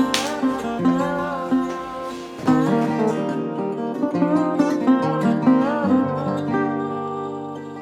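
Outro music: acoustic guitar picking a melody over held notes, with a long chord held near the end.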